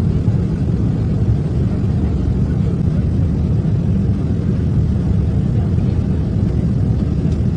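Steady low drone of a jet airliner cabin in flight, the engine and airflow noise as heard from a passenger seat.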